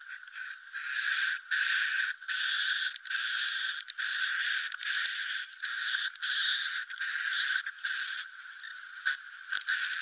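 Swiftlet roosting lure call ('suara inap'), the recorded swiftlet twitter that is played in swiftlet houses to draw the birds in to roost. It is a quick run of buzzy chirring calls, each about half a second long with a thin high whistle through it, repeating with short gaps at roughly one to two calls a second.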